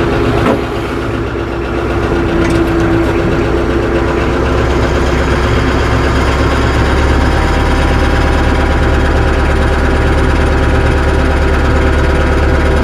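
Tractor engine running steadily at low speed as the tractor creeps forward to drive onto a tire chain, with a brief knock about half a second in.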